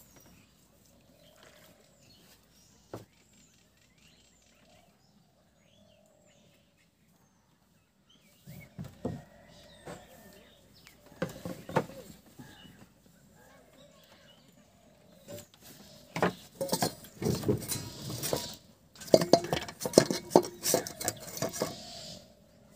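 Faint bird chirps over near quiet, then irregular knocks and clatter of gear being handled on the wooden, bamboo-decked boat, building in the last few seconds into a dense run of clinks and knocks from a steel bowl.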